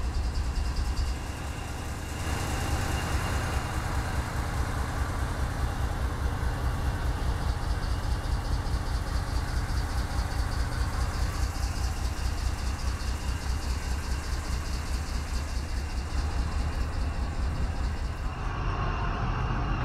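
GE ET44C4 diesel-electric locomotive's V12 GEVO diesel idling: a steady low rumble with a rapid pulse and a faint steady high whine.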